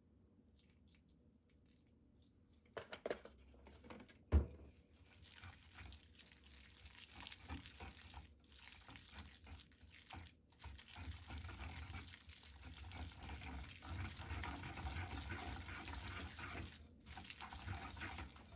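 Wooden pestle grinding and mixing minced sardine paste in a suribachi, the grooved Japanese mortar: a continuous scraping swish that builds and runs with only brief breaks. Before the grinding starts there are a few light knocks and one sharp thump, about four seconds in, of the pestle against the bowl.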